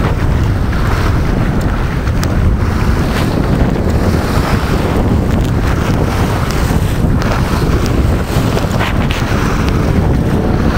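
Loud wind buffeting the microphone over water rushing and splashing along the hull of a sailboat under sail in choppy water, steady throughout with no engine.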